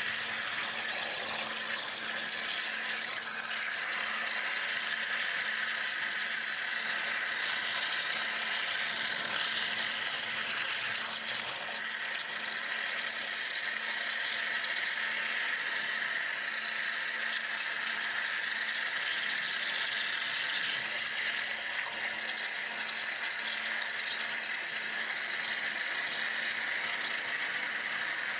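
CNC water jet cutter's high-pressure jet cutting through a metal sheet: a steady, high-pitched hissing spray, with a faint steady low hum beneath it.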